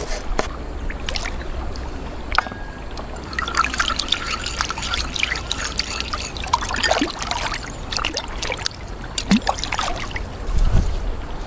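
Water trickling and splashing, busiest through the middle, with scattered sharp clicks and knocks.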